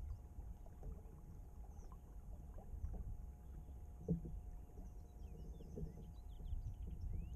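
Water lapping and trickling along the hull of a small wooden sailing skiff moving slowly in light wind, over a low steady rumble. One soft knock about four seconds in.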